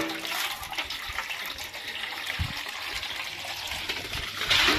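Water running steadily from a hose and splashing onto wet stone and into a metal basin, with a single dull thump about halfway through.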